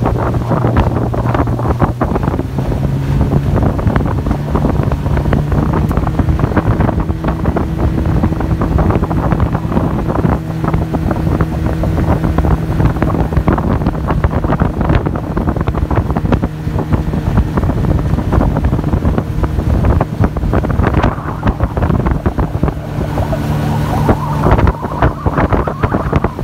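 A 30 hp outboard motor pushing a small aluminium boat at speed: a steady engine drone with wind buffeting the microphone. The engine note rises a little near the end.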